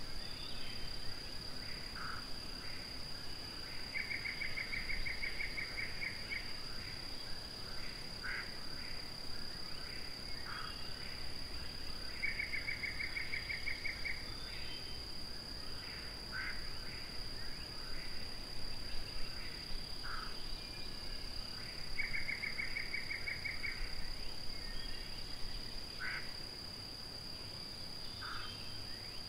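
Outdoor animal chorus: a steady high-pitched whine under scattered short calls, with a pulsed trill of about six notes a second, lasting about two seconds, heard three times.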